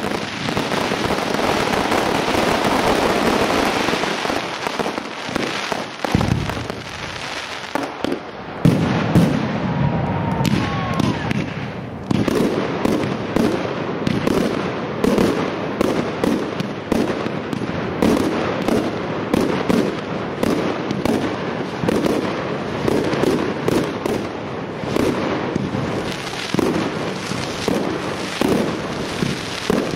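Professional firework display: multi-shot fireworks firing and bursting in quick succession. The first few seconds are a dense, continuous barrage. After a few separate loud bangs, a fast, steady run of bangs and crackles follows, several a second, from about twelve seconds in.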